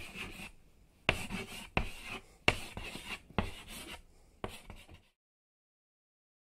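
Marker writing on paper: six strokes in a row, about a second apart, each starting sharply and fading out.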